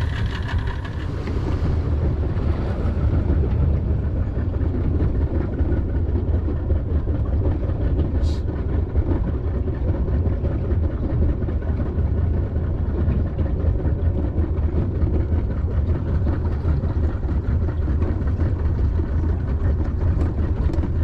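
A boat's outboard motor running steadily under way, a continuous low rumble with water and hull noise.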